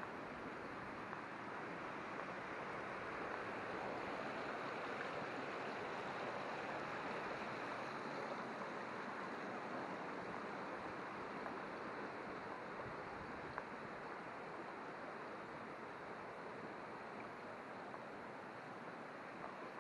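A stream's water running steadily over rocks, a continuous rushing hiss.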